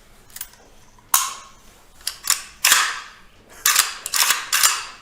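Sharp metallic clacks of an automatic rifle's action being worked and dry-fired, about eight in all, some coming in quick pairs, each with a short ringing tail.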